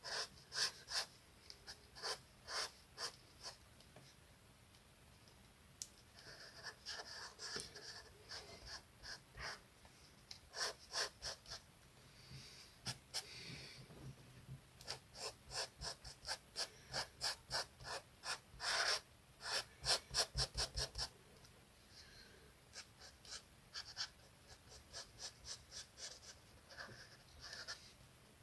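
Colouring on paper: runs of quick back-and-forth scratching strokes, fastest about two-thirds of the way in, with a few breaths between runs.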